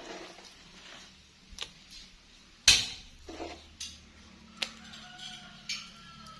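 Hard ceramic clinks and knocks of wall tiles and tiling tools being handled: a few light taps and one much louder sharp clack about two and a half seconds in.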